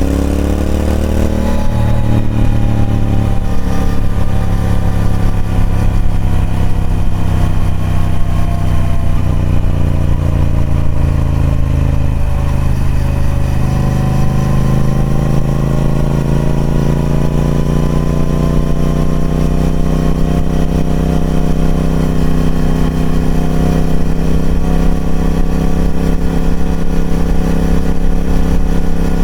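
Triumph Speed Twin 1200's parallel-twin engine through its stock exhaust, under way: the revs rise briefly at first, ease off slowly for about ten seconds, then build steadily again.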